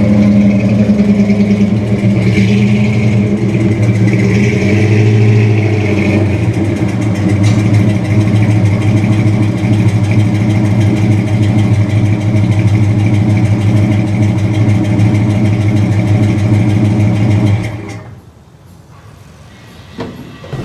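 Vehicle engine running steadily, then switched off about three-quarters of the way through; a short knock near the end.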